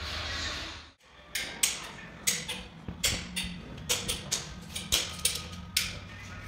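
A steady hiss of noise that cuts off suddenly about a second in, followed by a series of sharp clicks and taps, roughly two a second.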